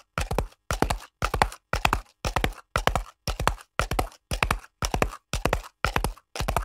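Horse hooves clip-clopping on a hard surface in a very even, repeating rhythm: short clusters of three or four hoof strikes, about one cluster every 0.6 s, with silence between.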